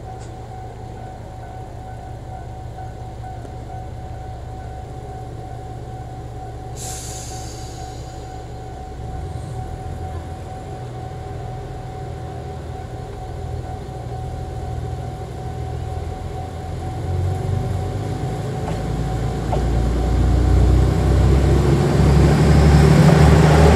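JR Shikoku 2000 series diesel multiple unit idling at a standstill with a steady hum, a short hiss of air about seven seconds in, then its diesel engines opening up and getting steadily louder, with a rising note, as the train pulls away and draws past.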